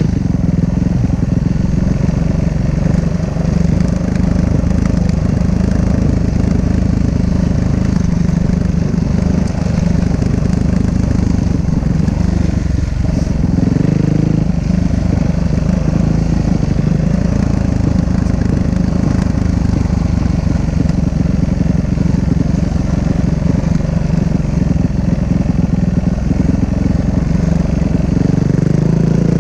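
Dirt bike engine running steadily as the bike rides along, picked up from the rider's helmet, with a brief shift in pitch about halfway through.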